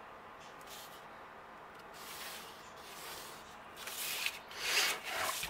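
Hands and a plastic drafting triangle sliding and rubbing over a sheet of graph paper on a tabletop, faint at first, with louder brushing swishes from about four seconds in.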